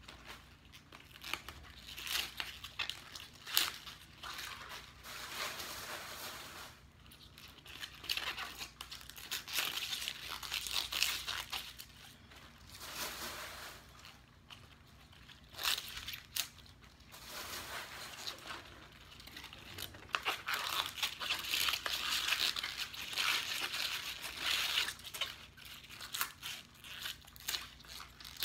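Fresh collard green leaves being handled and torn by hand, in irregular bursts of rustling, crinkling and crisp tearing.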